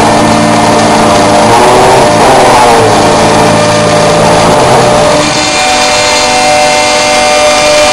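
RME 6080 CNC router's spindle and end mill milling aluminium flat bar, a loud continuous machining sound with wavering tones. About five seconds in the sound changes to steadier, higher tones.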